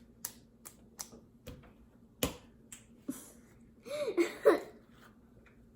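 Wet slime being squeezed and stretched in the hands, making a series of sharp little clicks and pops, the loudest a little past two seconds in, with a few brief squeaky squelches around four seconds in.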